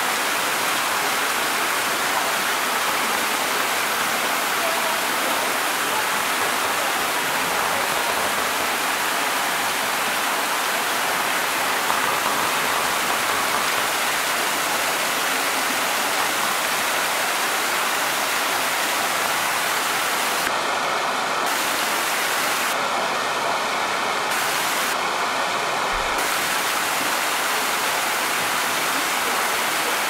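Small artificial waterfall splashing steadily down a rock wall, a constant rushing hiss. Near the end, three short pitched tones sound about two seconds apart.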